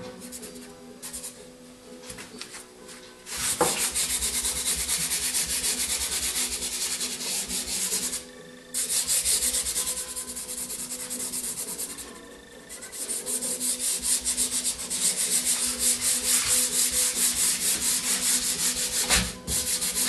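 Dry pastel being rubbed into pastel paper by hand in fast, scratchy back-and-forth strokes. The rubbing starts a few seconds in and runs in long stretches with two short pauses.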